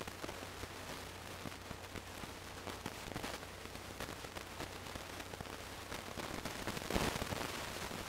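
Crackling static hiss over a steady low hum, with a louder rush of noise about seven seconds in.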